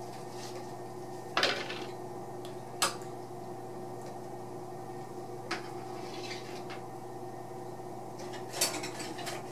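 A dish and a utensil clinking and knocking on a kitchen counter as cat food is dished out. There are a few separate sharp clinks, about a second and a half in, near three seconds and after five seconds, then a short cluster near the end, over a steady low hum.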